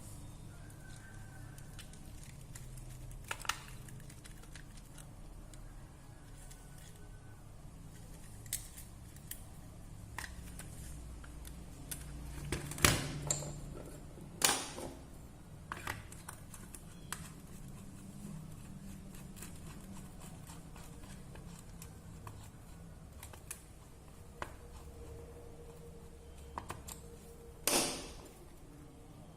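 Scattered small clicks and taps over a low steady hum, with a few louder knocks about halfway through and one near the end.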